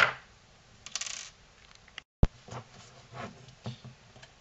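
Small metal screws clinking as they are set down, then light clicks and taps from the plastic case of a Bluelab Guardian monitor as its two halves are worked apart by hand. There is a single sharp click about halfway through.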